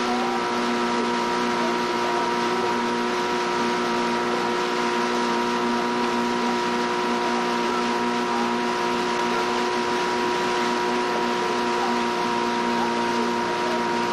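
Motorboat engine running at a constant speed: a steady drone over an even hiss that does not change.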